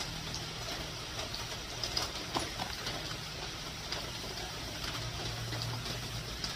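A few faint clicks and handling noises from a plastic tube being worked by hand at its end, over a steady low hum.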